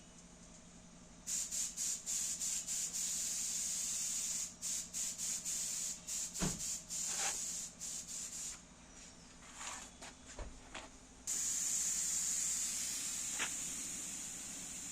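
Compressed-air spray gun hissing in many short on-off bursts, then in one long steady spray from about eleven seconds in, over a faint steady low hum.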